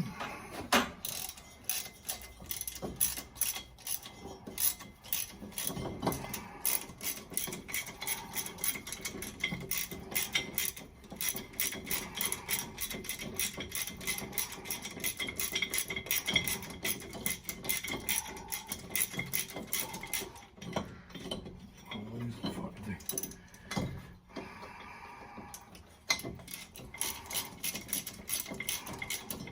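Socket ratchet clicking in quick repeated strokes while pulley bolts are worked loose on an engine, with a brief lull about three-quarters of the way through.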